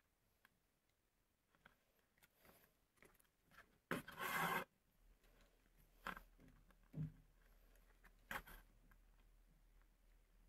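Thread being drawn through punched holes in leather during hand stitching: a short rasp just after four seconds in, then a few fainter brief rubs and scrapes.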